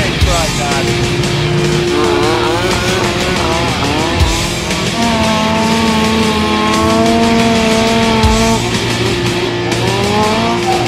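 Turbocharged snowmobile engine revving hard, its pitch rising and falling repeatedly, then holding a steady high rev for a few seconds in the middle before climbing again near the end. Rock music plays underneath.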